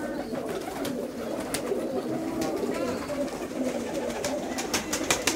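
A flock of domestic fancy pigeons cooing together, many low coos overlapping, with scattered sharp clicks and scuffs that come thicker near the end.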